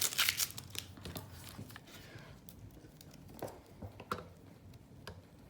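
Plastic packaging crinkling and small clicks as a plastic-wrapped webcam is handled, busiest in the first half-second, then a few scattered faint ticks.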